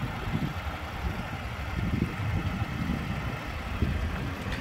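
Diesel truck engine idling: a low, uneven rumble.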